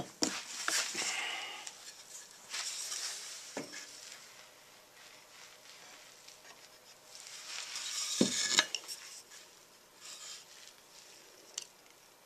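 Workbench handling noises: wooden boards picked up, moved and set down, with rustling and a few light knocks, the firmest about eight seconds in.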